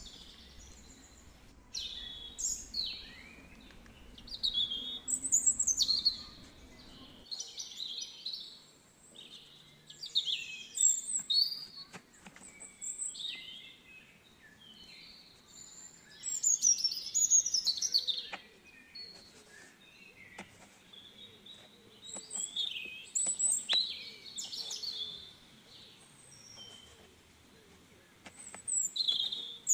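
Songbirds singing: phrases of high chirps and quick falling whistles that come in bursts every couple of seconds.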